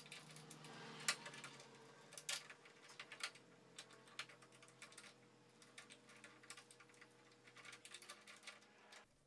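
Faint, irregular small clicks and taps of metal caster hardware being handled and fitted together, with a few sharper clicks about a second in and just after two seconds, over a low steady hum.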